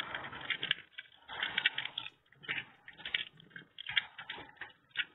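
Hands scrubbing a wet orange under a running kitchen tap: irregular bursts of splashing and rubbing, sounding thin as if played back over a video call.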